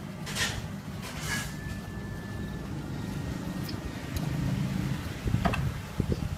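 Low steady background rumble, with a few short scraping strokes of a small carving knife cutting into melon flesh: two about half a second and a second and a half in, and another near the end.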